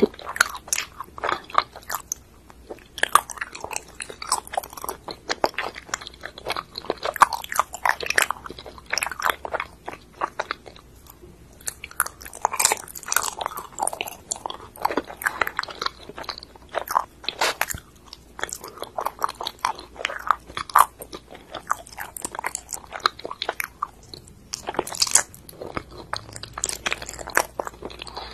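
A person biting and chewing ice cream mochi: a dense run of short mouth clicks and smacks, with brief quieter pauses between bites.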